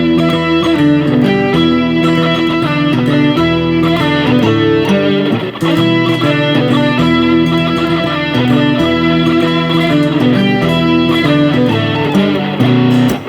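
Guitar music: an instrumental passage between sung verses, with chords and a bass line and no singing.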